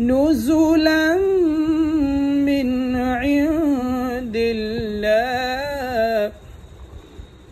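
A single voice reciting a Quran verse in Arabic in slow melodic chant (tajweed), with long held notes sliding up and down in pitch. The chant stops about six seconds in.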